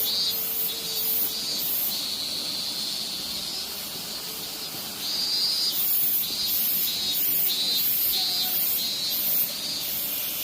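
Minmin cicada (Hyalessa maculaticollis) singing its repeated 'meen-meen' call, pulsing about twice a second. The call swells stronger about halfway through and eases off near the end.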